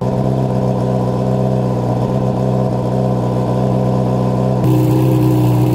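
Yamaha R6 inline-four sport-bike engine idling steadily, stepping up slightly in level and tone about four and a half seconds in. With the engine running the battery reads only 11.7 volts, so the charging system is not charging, which the owner puts down to a failed stator.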